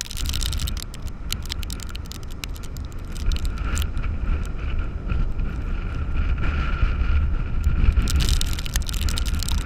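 Storm wind buffeting the microphone in a heavy, steady rumble, over the constant hiss and wash of large surf, with scattered sharp ticks against the camera.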